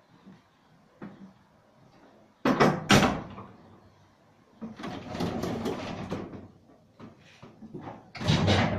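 Doors of an old museum tram banging shut with two loud knocks, followed by a few seconds of rattling clatter. Near the end the tram pulls away with a steady rumble of wheels on track.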